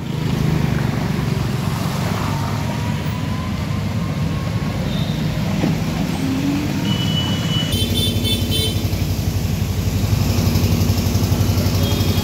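Street traffic with motorcycle and scooter engines running. A cluster of short high-pitched beeps comes about eight seconds in.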